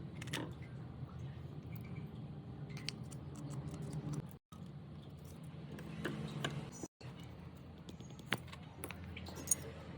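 Light metallic clicks and taps from small parts being handled during a mixer grinder motor repair, over a steady low hum. The sound drops out abruptly twice.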